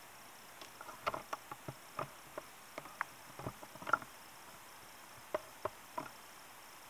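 A run of light, irregular taps and clicks on a smartphone in a protective case, about fifteen over five seconds, some in quick pairs, with the loudest about four seconds in.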